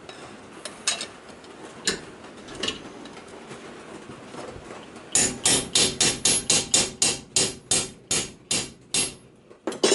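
Hammer blows on a steel punch driven into a vent hole in a thin stainless steel sheet over a dishing jig, dishing the hole's edge. A few light taps come first, then about four seconds of quick, even strikes, roughly three a second. The blows are kept up until their sound changes, the sign that the hole is fully dished.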